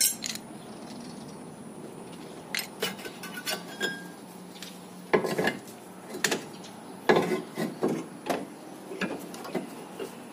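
Brake caliper being worked free of a car's front hub by hand: scattered metallic clinks, knocks and rubbing, with louder clatter about five seconds in and again around seven seconds.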